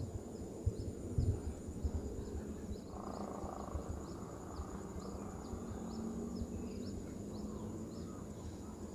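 Wind buffeting the microphone as a low, uneven rumble with occasional thumps. Over it insects keep up a steady high drone and short chirps that repeat every half second or so.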